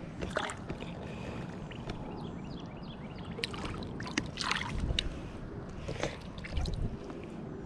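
Largemouth bass released into shallow pond water: several short splashes and sloshes as the fish is dipped and lets go, over a steady low rumble.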